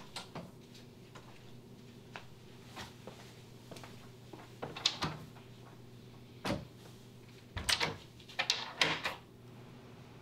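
A door being shut and handled: several sharp clicks and knocks of the door and its latch, bunched in the second half with the loudest near the end, over a low steady hum.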